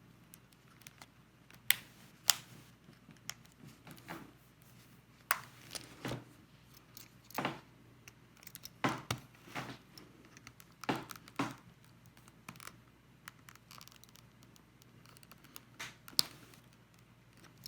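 A small tool clicking and scraping irregularly against the coin-cell battery and its plastic housing in the keyboard as the battery is pried loose.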